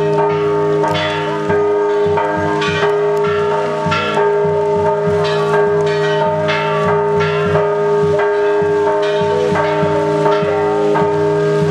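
Church bells pealing, struck rapidly over and over at about two to three strokes a second, their tones ringing on without a break.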